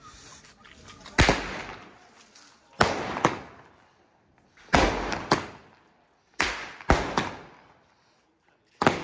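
Firecrackers going off one after another: about eight loud, sharp bangs at irregular intervals, each trailing off in a short echo.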